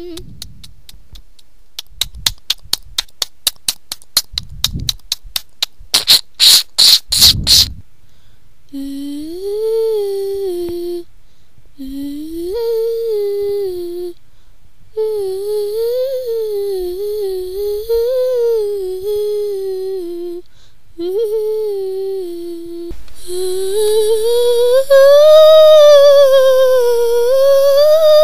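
A run of quick sharp clicks, the last few louder, then a child humming a wavering tune that rises and falls in phrases with short breaks, loudest near the end.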